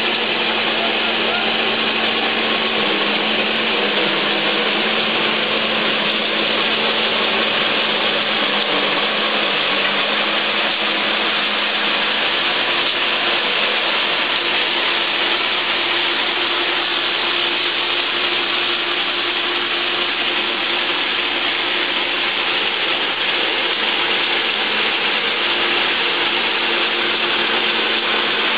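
Electric corn husking machine running with ears of corn fed through it: a steady, dense clattering of cobs and husks being stripped inside the machine.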